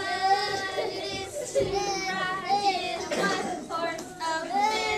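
A group of toddlers singing a song together, with held, wavering notes.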